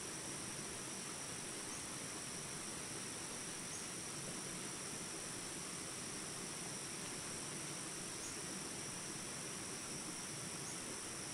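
A steady, high-pitched chorus of insects, two unbroken high tones over a constant hiss of open-air ambience.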